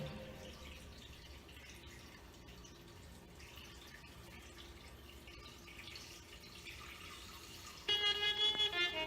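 Faint, steady background noise between songs, then background music starts loudly about eight seconds in.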